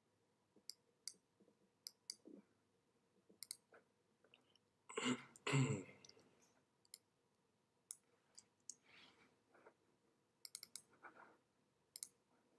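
Scattered single clicks from working a computer's pointing device, coming at irregular moments, with one louder, longer noise about five seconds in.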